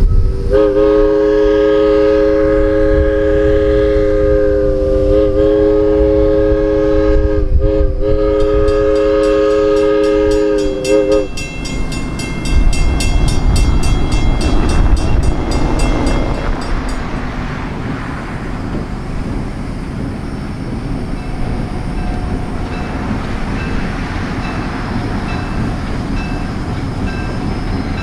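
Diesel locomotive's multi-chime air horn sounds a long chord for about ten seconds, broken by a couple of brief gaps. A bell rings rapidly over the last part of the horn and for several seconds after it. The train's heavy rumble runs underneath as it passes.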